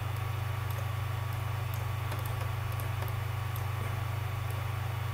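Steady low electrical hum in the recording, with a few faint clicks.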